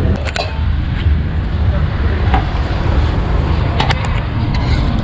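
Steady low rumble of street traffic, with a few sharp metallic clinks of kitchen utensils on top.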